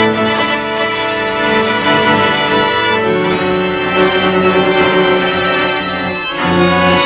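String quartet of two violins, viola and cello playing long, sustained bowed chords, moving to a new held chord about six seconds in.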